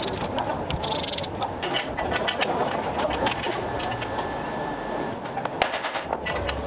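Dense clatter of sharp metal knocks and scrapes from hand tools working on steel tank running gear: track links and a drive sprocket.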